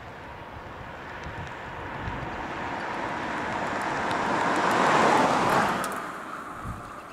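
Chrysler PT Cruiser driving past on an asphalt road: its road and engine noise swells as it approaches, peaks about five seconds in, then fades.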